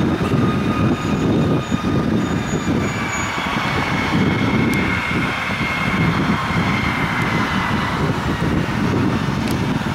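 Boeing 717-200's two Rolls-Royce BR715 turbofans at takeoff power as it lifts off and climbs away: a steady rumble with a faint high whine that drops slightly in pitch midway.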